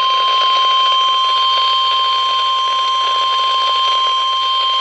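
Weatheradio Canada warning alarm tone: one loud, steady tone over radio hiss. It alerts listeners that a severe weather warning message follows.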